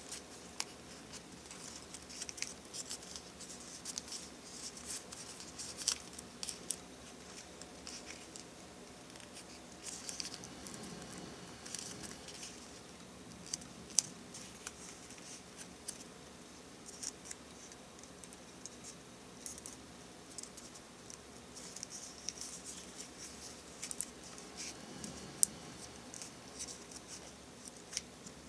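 Origami paper being folded and creased by hand: faint, irregular rustles and crinkles with sharp little clicks as the paper is pressed and pinched into shape.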